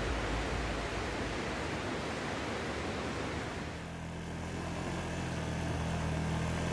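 Surf breaking and hissing, then about four seconds in a quad bike (ATV) engine comes in, running with a steady low hum.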